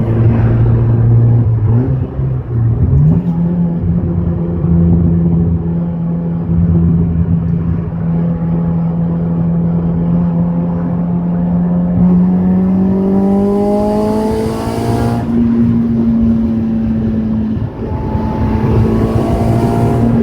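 Audi A4 B5 1.8T's turbocharged four-cylinder engine running with an exhaust leak. Its pitch steps up about three seconds in, then climbs slowly and holds high. A hissing rush comes in twice in the second half.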